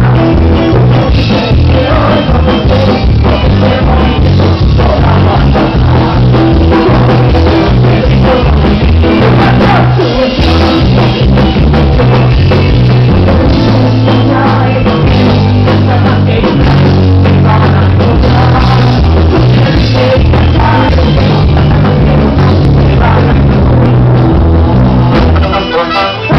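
Live ska band playing loudly, with horns and singing over drums and bass.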